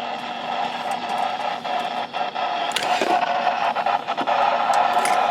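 Noisy weather radio reception: steady static hiss with several steady whining tones and scattered crackles, growing a little louder about halfway through, the sound of a weak, interference-laden signal.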